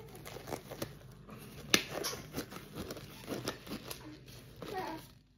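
Thin plastic packaging crinkling and rustling as it is handled, with scattered small clicks and one sharp snap about a second and three-quarters in.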